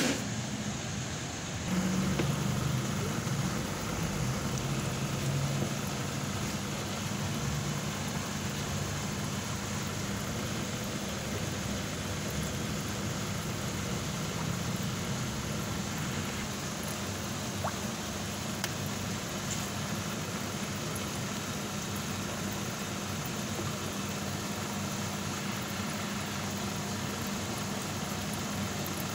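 Aquarium equipment running: a steady low hum under a wash of water noise, which gets louder about two seconds in and then holds.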